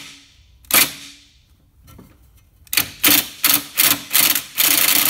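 Cordless impact wrench hammering on a seized lawn mower blade bolt at its second speed setting, which does not shift the bolt. A short burst comes under a second in, then a quick string of short bursts from about halfway, running into a longer stretch of steady hammering near the end.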